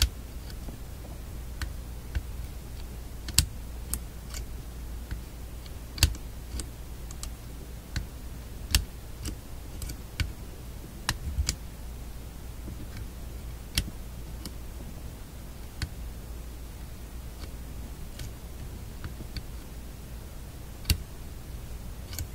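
Irregular sharp clicks and taps of a magnet being stroked along the shadow meter's internal magnet to re-magnetize it, metal snapping against metal, over a steady low hum.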